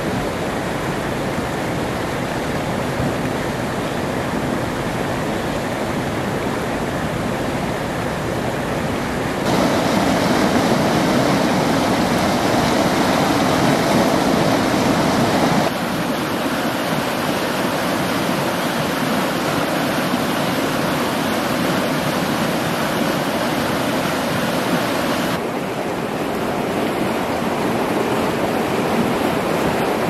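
River rapids rushing over rocks: a steady noise of white water that steps suddenly louder about ten seconds in, drops back about six seconds later, and shifts slightly again near the end.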